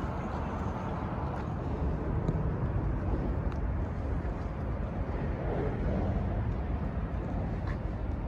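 Wheelchair rolling over a concrete pier deck: a steady low rumble, with a few faint ticks.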